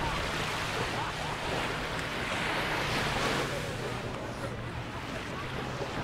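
Sea surf washing on the beach: a steady hiss of waves that swells about halfway through, with a low steady hum underneath.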